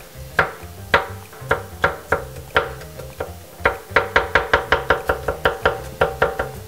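Kitchen knife chopping on a wooden cutting board. The chops come singly and spaced out at first, then quicken to about five a second from about four seconds in. Background music plays under the chopping.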